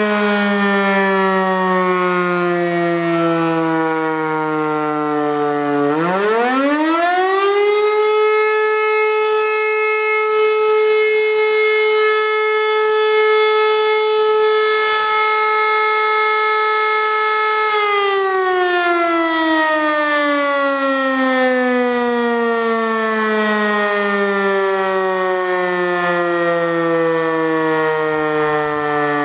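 E57 electro-mechanical siren, driven by a 5 kW three-phase motor, sounding the fire-alarm test signal. Its wail is first sliding down in pitch as the rotor coasts. About six seconds in it spins up quickly to a steady held tone for about twelve seconds, then winds down again in a long, slowly falling wail.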